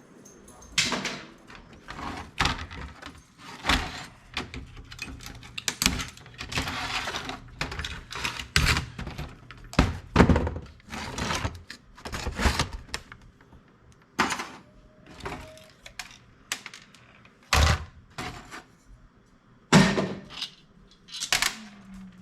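Irregular knocks, clanks and rattles of computer parts being pulled apart and handled during a teardown for scrap, with a brief rasping noise about six seconds in.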